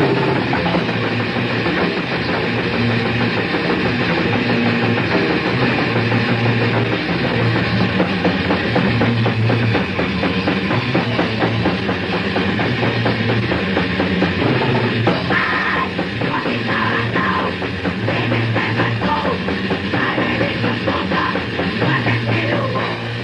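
Death metal band playing distorted electric guitars, bass and a drum kit. It is a 1989 cassette demo rehearsal recording, dull-sounding with no high treble.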